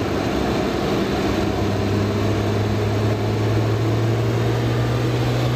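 Ashok Leyland transit mixer's diesel engine idling with a steady low hum that grows stronger about a second and a half in.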